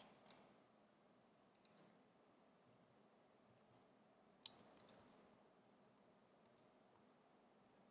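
Faint computer keyboard keys clicking as code is typed, in short irregular clusters, the loudest about four and a half seconds in.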